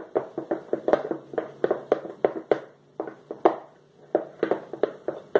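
Spoon stirring a thick, sticky slime mixture in a glass bowl: irregular clicks and knocks of the spoon against the glass, several a second.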